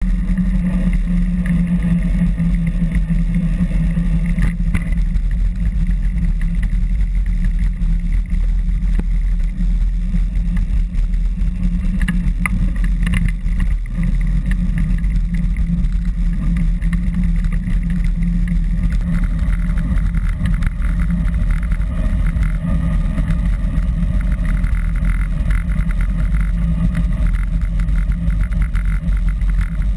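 Steady low rumble of wind and road noise on a bicycle-mounted camera while riding along a road beside passing traffic.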